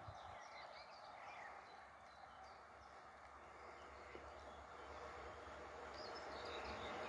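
Small birds chirping over the faint low rumble of a distant ČD class 842 diesel railbus approaching, its sound growing steadily louder toward the end.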